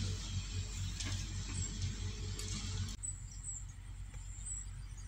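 Pondside outdoor sound: a steady hiss and a low throbbing rumble that cut off abruptly about three seconds in, with short high chirps recurring about once a second.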